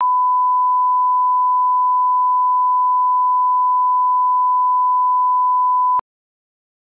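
Steady 1 kHz sine-wave line-up tone played with SMPTE colour bars, the reference signal for setting audio levels. It holds one pitch for about six seconds and cuts off abruptly.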